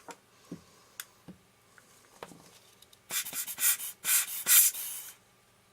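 Lens spanner working a threaded retaining ring on an old EXAKTAR 50mm lens: a few light taps, then about two seconds of scratchy rubbing in several short strokes, starting about three seconds in.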